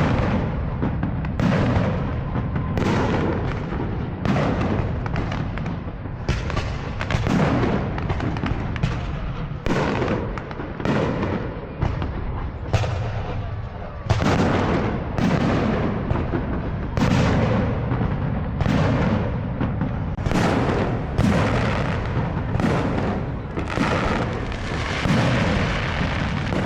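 Aerial fireworks shells bursting in quick succession, about one bang a second, over a continuous low rumble of echoing booms.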